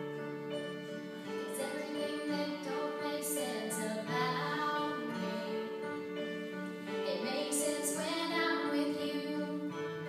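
Live music at a sound check: a voice singing over steady held chords of instrumental backing.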